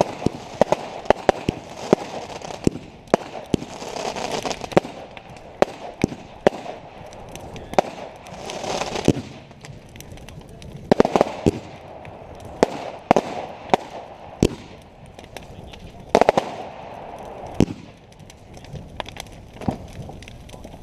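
Fireworks going off: an irregular string of sharp bangs and pops, with several longer stretches of crackling hiss between them.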